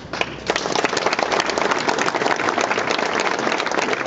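Audience applauding: many hands clapping in a dense, steady patter that starts suddenly and fills out about half a second in.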